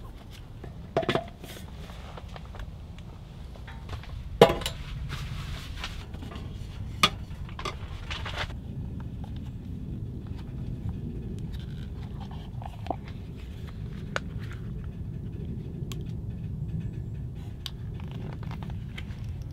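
Clicks and knocks of camp gear being handled, with metal pole sections fitted together: a few sharp knocks in the first half, the loudest about four seconds in, over a steady low rumble.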